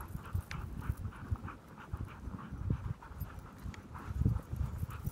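Team of sled dogs running in harness, their panting breaths coming in a quick even rhythm, over irregular low thumps and rumble from the sled moving over snow.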